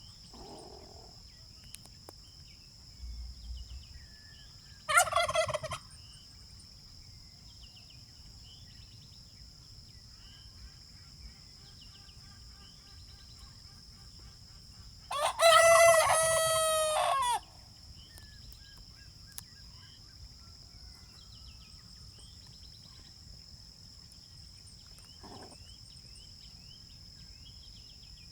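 A turkey gobbling and a rooster crowing: two loud calls about ten seconds apart, the second one about two seconds long, with a faint call near the end. A steady high insect drone runs underneath.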